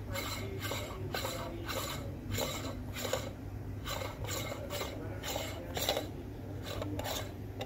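Metal espresso distribution tool being twisted back and forth in the portafilter basket, making short rubbing, scraping strokes about two to three a second, with a brief pause about halfway.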